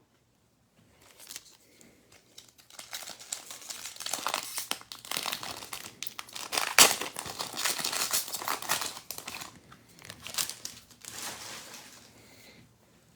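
Wrapper of a pack of football trading cards being torn open and crinkled by hand, a run of crackling and rustling with one sharp snap about halfway through.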